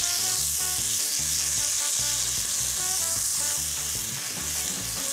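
Freshly washed quinoa sizzling steadily in a hot pot while it is stirred with a silicone spatula.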